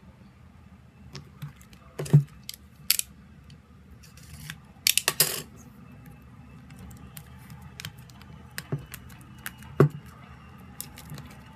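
Hands handling a plastic-sealed album: scattered sharp taps and clicks of the album and its plastic cover against the table, with a short crinkly rustle about five seconds in.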